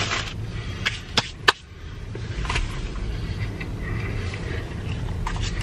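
Low steady rumble of an idling car heard from inside the cabin. About a second in come three sharp clicks, the last the loudest.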